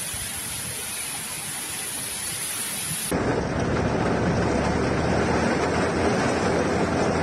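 Steady hiss of heavy storm rain. About three seconds in it cuts to a louder, deeper rushing noise of floodwater pouring down a street in the storm.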